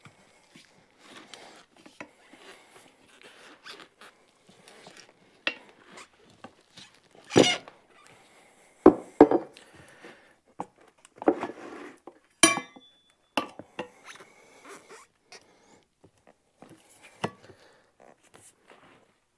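Steel tire spoons scraping, knocking and clinking against a small lawn tractor wheel rim as the tire bead is pried off, with a scatter of rubbing and clicks and a few louder knocks, one with a short metallic ring. The tire and rim are small and the spoons are big, so they fight each other.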